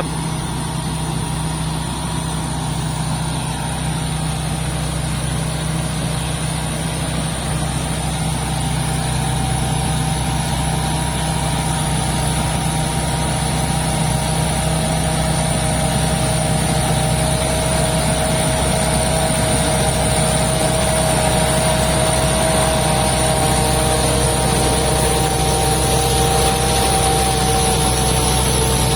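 Combine harvester's Hino J08C turbo diesel engine running steadily, with a thin high whistle over it, growing slightly louder.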